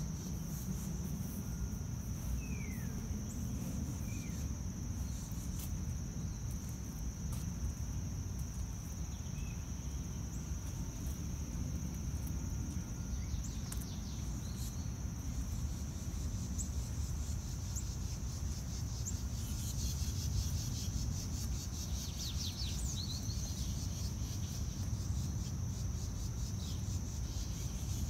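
Insects droning steadily at a high pitch over a low outdoor background rumble, with a few short chirps about three seconds in and again around twenty seconds in.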